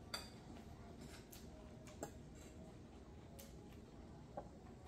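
Near-silent room with three faint short clicks spaced about two seconds apart, the first the loudest: a metal spoon touching a bowl during a meal.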